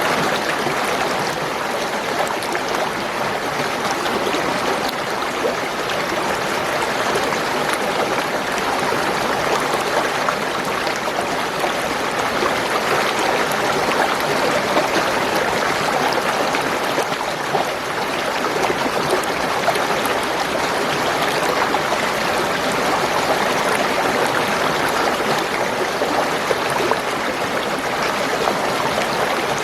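Spring water gurgling and flowing steadily, an even unbroken rush of running water.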